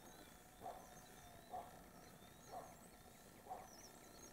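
Faint outdoor ambience with a short low call repeated about once a second, and thin high chirps of small birds over it.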